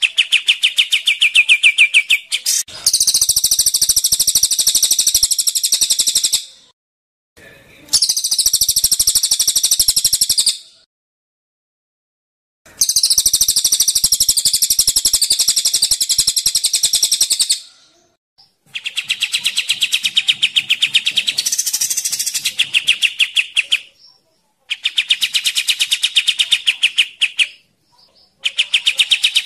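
Recorded calls of a cililin (crested jay) and a kapas tembak bulbul on a songbird mastering track. They come as bursts of very fast rattling trills, each a few seconds long, separated by short gaps. Some bursts are higher-pitched than others.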